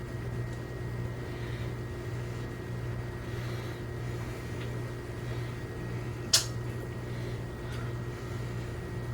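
Steady low hum of a fan or electrical appliance in a small room, with one sharp click about six seconds in.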